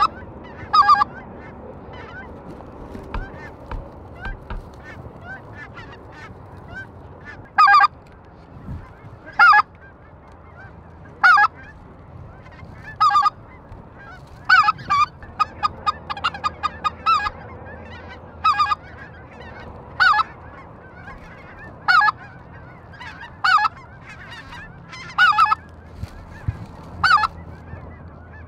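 Geese honking: loud honks about every one and a half to two seconds, with quicker runs of short clucking calls in between.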